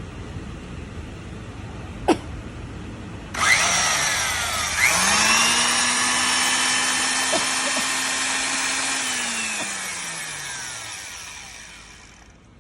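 SHIBUYA TS-131 diamond core drill motor switched on for an operation check, preceded by a sharp click: it starts suddenly, its hum rises to speed and runs steadily, then falls in pitch as it is switched off and winds down, fading near the end.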